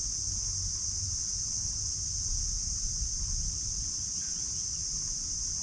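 Steady, high-pitched chorus of insects such as crickets or cicadas, with a low rumble underneath.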